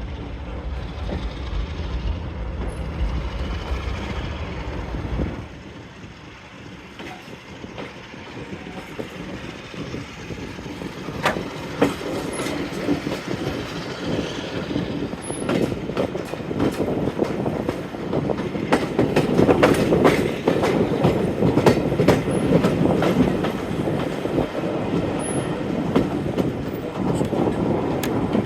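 Train hauled by Class 45 diesel 45108 on the move, its wheels clicking over rail joints, the rolling noise growing louder in the second half. A low rumble in the first few seconds drops away about five seconds in.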